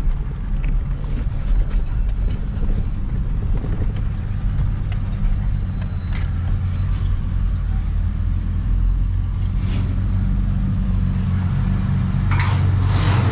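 Steady low engine drone with road noise, heard from inside a vehicle's cabin.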